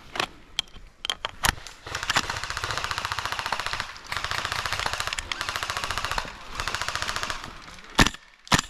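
Airsoft guns firing: a few single shots, then long rapid full-auto bursts from about two seconds in, broken by short pauses, and two sharp cracks near the end.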